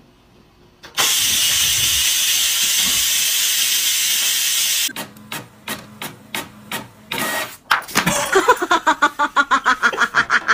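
Electric pressure rice cooker venting steam with a loud, steady hiss that cuts off abruptly about five seconds in. After it comes a string of sharp clicks, then a rapid run of short pitched pulses.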